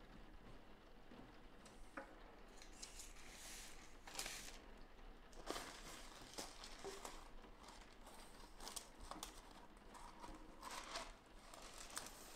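Large sheets of transfer paper being handled on a paper trimmer: faint paper rustling and sliding in several short bursts, with a few light clicks.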